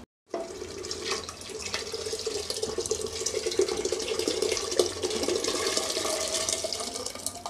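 Boiled chickpeas and their cooking water pouring in a steady splashing stream into an aluminium pressure cooker onto fried masala, beginning just after a moment of silence and tapering off near the end.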